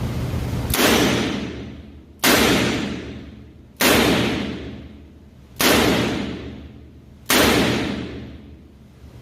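Five shots from a Smith & Wesson .357 Magnum revolver, fired one at a time about one and a half to two seconds apart, each with a long echoing tail.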